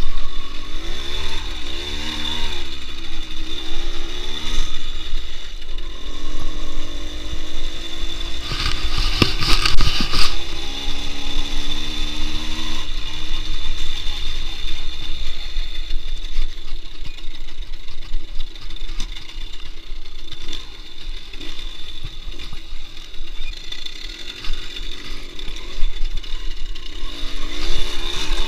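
Delta RMR 24 motorcycle engine running under way, its pitch rising and falling with the throttle, over heavy low wind rumble. A steady high whine runs under it throughout, and there is a rough rattling stretch about a third of the way in.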